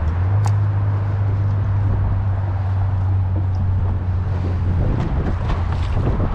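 Small boat's outboard motor running steadily at low speed, a constant low hum that fades after about five seconds, with wind on the microphone.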